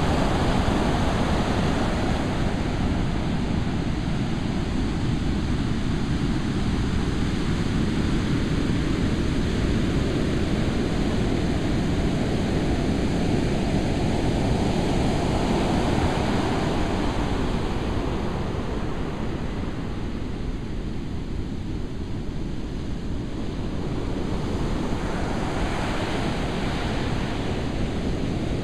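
Ocean surf breaking on a beach: a continuous rush of waves that swells several times as breakers crash, with a low wind rumble on the microphone.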